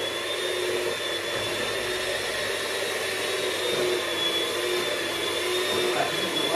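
Electric hand mixer running steadily on its top speed, beating cake batter in a bowl, a constant motor whine that wavers slightly in pitch.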